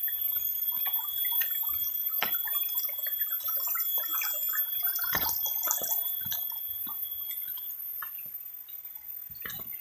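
Small stream water trickling and dripping, with many scattered little drips and splashes and a few sharper clicks.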